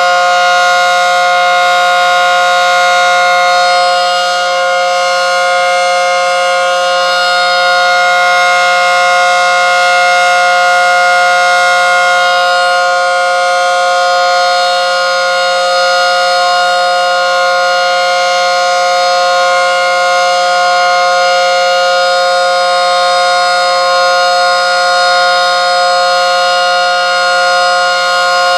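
ACA Screamer S10 outdoor warning siren, wired in reverse, sounding a steady full-alert tone: two main pitches held together without rising or falling, with slight swells in loudness.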